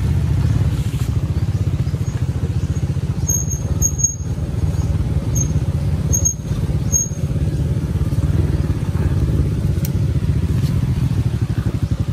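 Motorbike engine running steadily, with a few short high squeaks between about three and seven seconds in.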